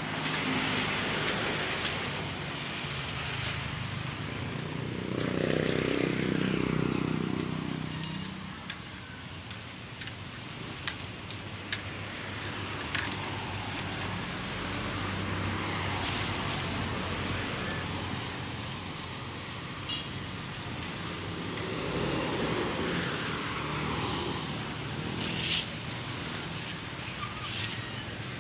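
Road traffic passing close by: vehicles drive past one after another. The loudest is an engine vehicle going by about five to eight seconds in, and another passes a little past twenty seconds.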